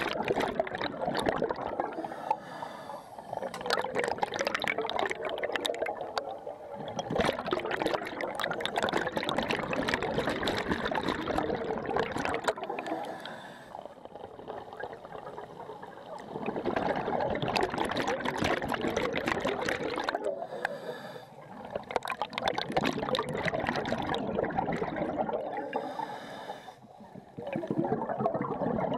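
Scuba divers' exhaled bubbles rushing and gurgling out of their regulators underwater, in long stretches of several seconds broken by a few short quieter gaps as a diver breathes in.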